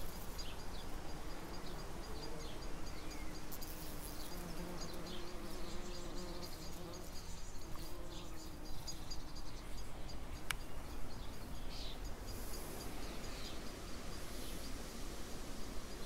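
Bumblebee buzzing in flight around rhododendron blossoms, a low hum that wavers in pitch and fades out about nine seconds in.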